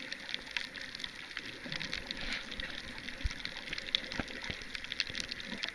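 Underwater sound picked up by a submerged camera: a continuous crackle of many small, irregular clicks over a steady hiss.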